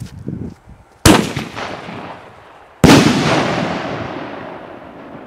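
Two loud firework bangs about two seconds apart, the second trailing off in a long echoing rumble.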